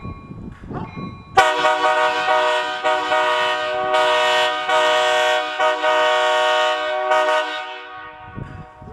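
Nathan Airchime K5HA and K3HA locomotive air horns blowing a chord. It comes on sharply a second and a half in, holds as one long blast with a few brief dips, then trails off about a second before the end.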